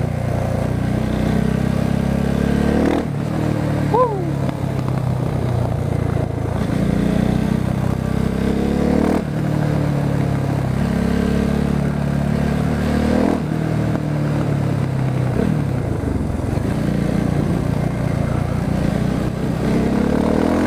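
Husqvarna 701 Supermoto's single-cylinder engine pulling hard through the gears, its exhaust run without the dB killer. The pitch climbs within each gear and drops back at each upshift, about four times. A short, high falling squeal comes about four seconds in.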